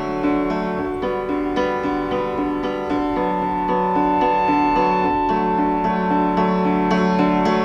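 Background music led by piano, a steady flow of sustained notes.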